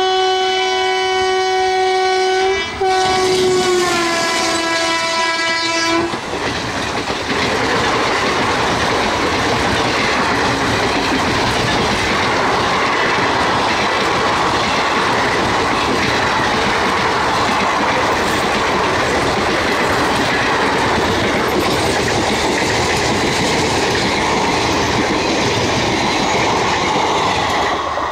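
WAP-4 electric locomotive's horn sounding one long blast, with a short break a little under three seconds in, after which its pitch drops as the engine passes close by; the horn stops about six seconds in. The express's coaches then rush past at speed, a steady loud rumble of wheels on rails that ends sharply near the end as the last coach goes by.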